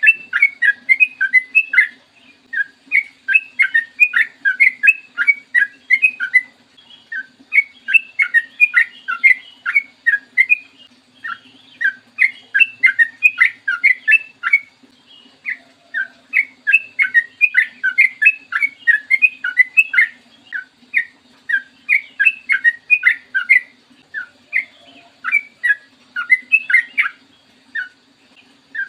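Yellow-vented bulbul (trucukan) singing long, fast runs of short bubbly notes. The phrases last a few seconds each, with brief pauses between them.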